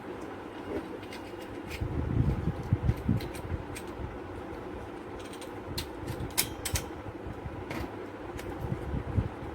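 Handling knocks and scattered sharp plastic clicks as a stock CPU cooler is fitted onto a motherboard and its push-pins are worked into the board, over a steady background hum.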